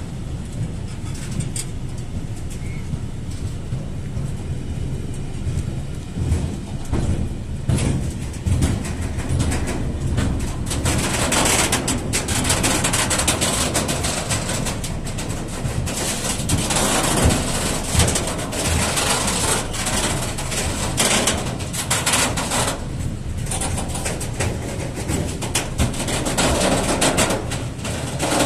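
Loaded Shimmns sliding-hood freight wagons rolling past close by, a steady rumble of steel wheels on the rails with sharp clacks over the rail joints and spells of louder rattle and hiss.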